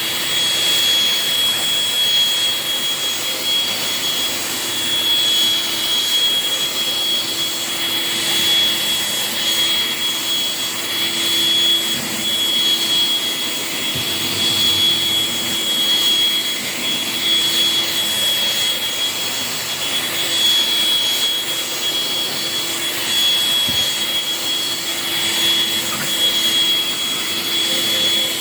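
A 2003 Electrolux TheBOSS SmartLite upright vacuum cleaner with twin motors, running steadily while vacuuming sand out of carpet. It has a steady high whine over a lower hum, and its loudness swells and dips every couple of seconds.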